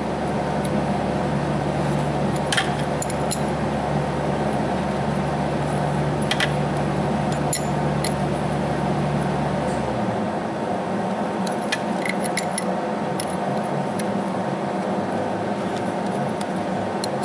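A steady machine hum and hiss, with a low hum in it that cuts off suddenly about ten seconds in. Over it come a few faint metallic clicks of a combination wrench being worked on a nut over a broken exhaust manifold bolt.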